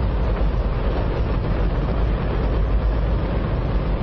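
Space Shuttle main engine, a hydrogen-oxygen rocket engine, firing on a test stand: a steady, extremely loud rush of noise with a deep rumble underneath.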